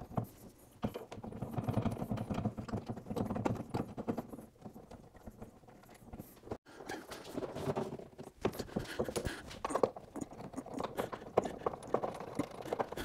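Small irregular metallic clicks, taps and light scrapes as hood bolts are started by hand through a steel hood hinge into a fiberglass hood, with a short break about halfway through.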